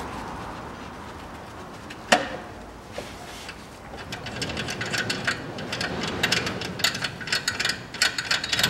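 Handling noise of an alternator drive belt being worked onto the engine's pulleys: a sharp metallic click about two seconds in, then, from about halfway, a run of rapid, irregular clicks and rattles of metal parts and tools.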